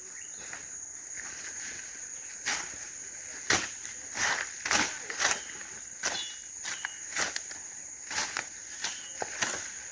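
Footsteps crunching at an irregular pace through dry leaves or brush, over a steady high-pitched insect chirring.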